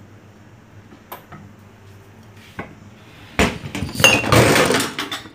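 A couple of light knocks, then about two seconds of loud rubbing and clattering from the phone itself as it is picked up and handled near the end.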